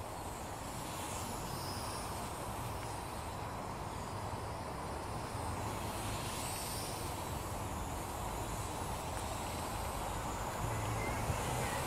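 A Syma toy quadcopter's small motors whirring over a steady outdoor hiss, with a faint whine that rises and falls in pitch. The sound grows a little louder toward the end.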